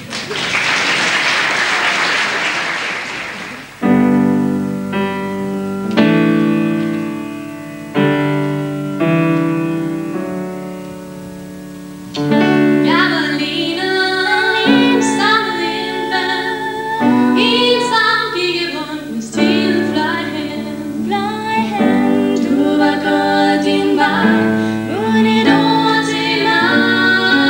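Audience applause for a few seconds, then a piano plays slow held chords as an introduction. About twelve seconds in, two female voices begin singing a ballad over the piano.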